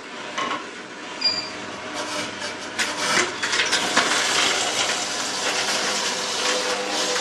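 Two slow juicers running together, a stainless-steel Angel twin-gear juicer and an Omega VRT 350 vertical single-auger juicer, crushing carrots. A steady motor hum runs throughout, and from about two seconds in it is joined by dense crackling and crunching as the carrots are fed in and broken up.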